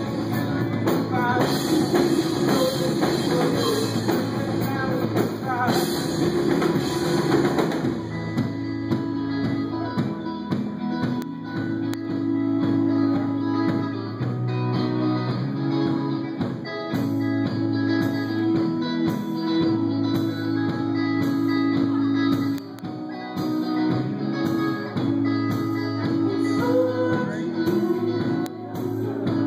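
Live indie noise-pop band playing a song: electric guitar, bass and drum kit. About eight seconds in, the dense full-band wash thins out into a sparser part built on long held guitar and bass notes.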